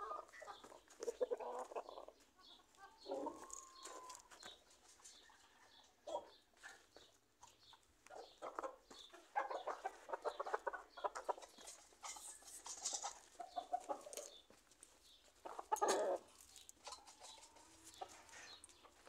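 Chickens clucking in repeated bursts of a second or two, several times, one after another.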